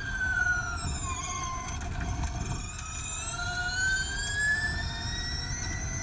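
Formula E electric race car's motor and transmission whine, heard onboard over tyre and road rumble. The whine falls in pitch over the first second or so as the car slows for a corner, then rises steadily from about two and a half seconds in as it accelerates away.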